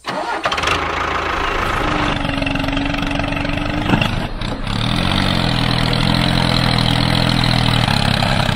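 Tractor engine running steadily under load as the tractor struggles with its wheels spinning in mud.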